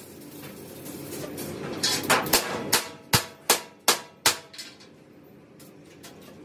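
A rising arc-welding hiss, then about eight quick hammer blows on the steel tank over some two and a half seconds, each ringing briefly, before the hiss carries on more quietly.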